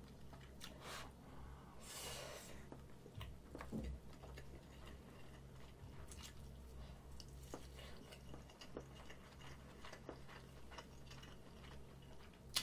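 Faint, close-miked chewing and mouth sounds of someone eating Spam with rice and then a bite of rolled omelette (gyeran-mari), with small wet clicks and smacks scattered through. A steady low hum sits underneath.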